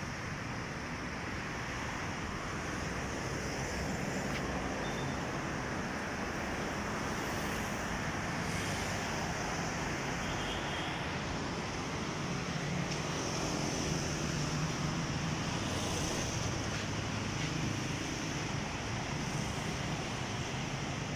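Steady road traffic noise, with a vehicle's low engine hum growing louder for a few seconds past the middle.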